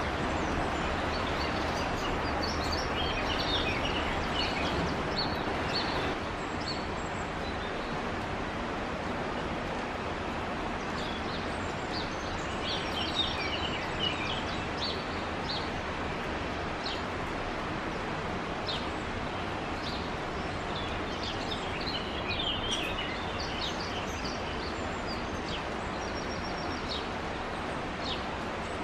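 Blackcap giving bursts of short, high chirps and ticks in three bouts, over a steady rushing background noise.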